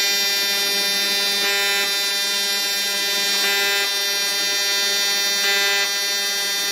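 AC TIG welding arc on aluminium plate: a loud, steady electric buzz.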